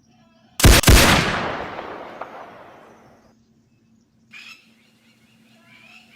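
Two rifle shots fired in quick succession, the report echoing and dying away over about two and a half seconds, followed by faint bird calls near the end.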